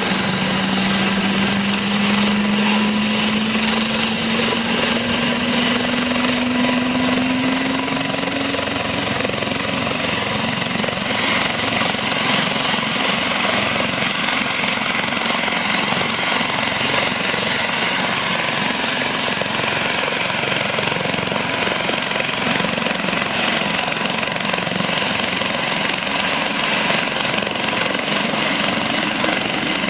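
Helicopter running nearby, a loud steady rush of rotor and engine noise, with a low tone that rises slowly in pitch over the first nine seconds or so.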